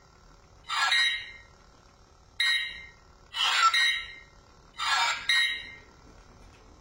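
Lischwert RGB toy lightsaber playing short electronic sound effects through its built-in speaker as its button is pressed to change colour: five brief ringing bursts, each fading quickly, spread about a second apart.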